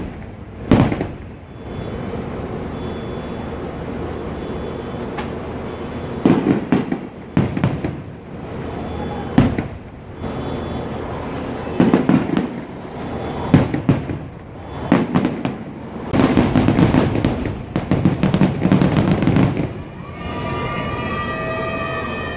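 Distant fireworks going off: a string of separate booms with crackling tails, then a dense run of bangs and crackle near the end, like a finale.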